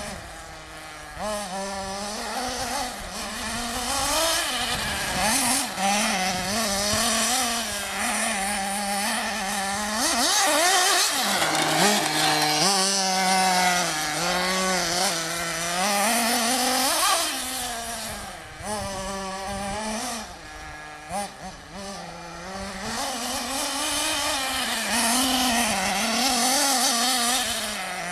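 Radio-controlled off-road car's small engine revving up and down as it laps the track, its buzzing pitch rising and falling over and over, loudest from about ten to thirteen seconds in.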